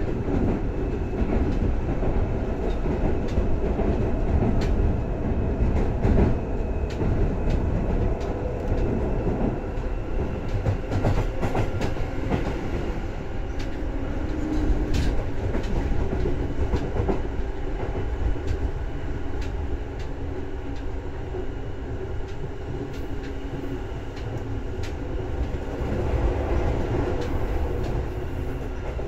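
Seibu 2000 series electric train running, heard from inside the car above the line breaker: a steady rumble of wheels on rail with scattered sharp clicks and a faint steady hum, easing a little past the middle.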